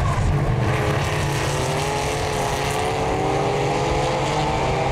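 Engines of a pack of historic racing cars passing together, many running at once at high revs, with one engine's pitch rising steadily through the middle as it accelerates.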